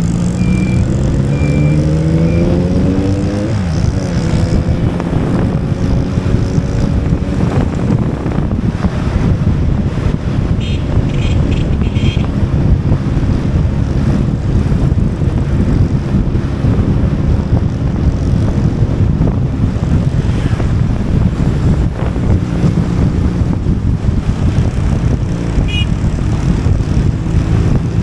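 Motorcycle engine pulling hard, its pitch rising over the first few seconds, then strong wind noise on the microphone at riding speed, with the engine running underneath.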